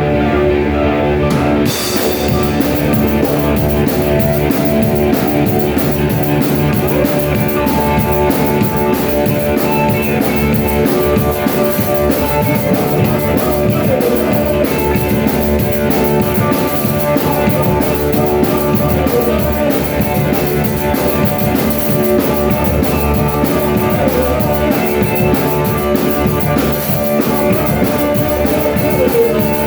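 Rock music with guitar and a drum kit, playing continuously; cymbals or hi-hat come in about two seconds in.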